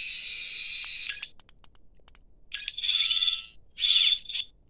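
14th Doctor toy sonic screwdriver playing its electronic sonic sound effect: a steady high buzzing tone for about a second and a half, a few clicks, then two shorter warbling bursts with sweeping pitch.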